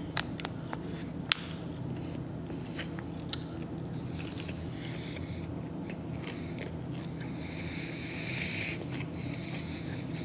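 A person eating close to the microphone: chewing with scattered sharp clicks and mouth smacks, over a steady low hum.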